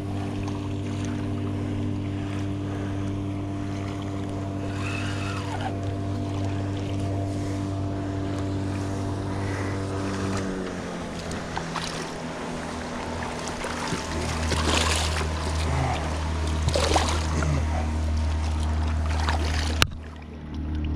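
A motor drones steadily and drops to a lower pitch about halfway through. Splashes and knocks in the second half come as a small spoonbill is landed at the water's edge.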